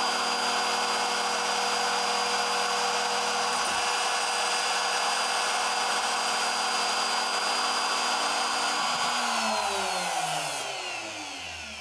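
CNC milling machine spindle running at speed while milling 4 mm hard PVC, with a steady high whine. About nine seconds in it is switched off and winds down, its whine falling in pitch as the noise dies away.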